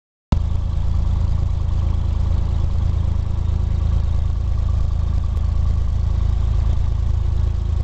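Single-engine piston light aircraft's engine and propeller heard from inside the cabin, a loud steady low drone at high power during the takeoff roll.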